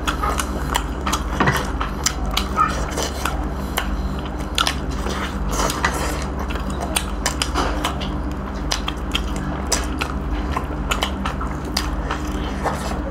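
Close-miked eating of roast duck: biting, tearing meat off the bone and chewing, with many irregular wet clicks and smacks.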